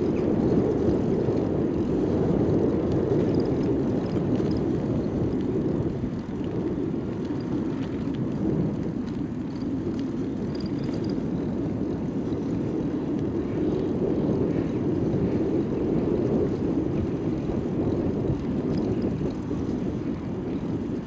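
Steady low rumble of wind buffeting the microphone, mixed with the tyre noise of a bicycle riding on asphalt.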